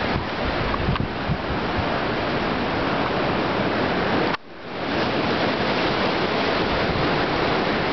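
Steady rush of waves and choppy inlet water, mixed with wind on the microphone. The sound drops out suddenly about four and a half seconds in and fades back up.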